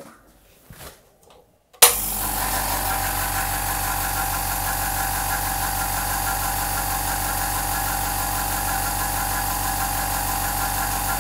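Implotex 850 W oil-free silent air compressor switched on about two seconds in, starting with a sharp jolt and then running steadily with an even hum and a fine rapid pulsing from its motor and pump. It is pretty quiet for a compressor, in the mid-60s decibels a metre away.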